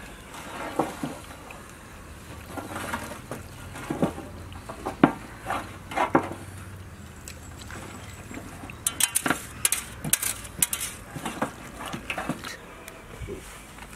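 A large metal platter knocking, scraping and clinking as a whole spice-coated goat carcass is lifted, turned and set down on it. The knocks come irregularly, with a quick flurry of sharp clinks about nine to eleven seconds in.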